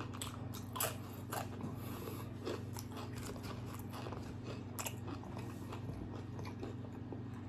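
Close-miked chewing and biting of crisp food, with small crunches and wet clicks scattered throughout and a few sharper crunches about one and one and a half seconds in and near five seconds.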